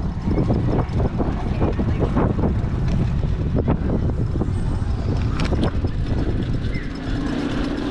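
Riding noise from a dual-motor electric bike under way: a steady rumble with wind buffeting the microphone.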